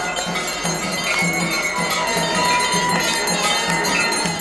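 Many temple bells ringing continuously during the Ganga aarti, over devotional music with a steady beat.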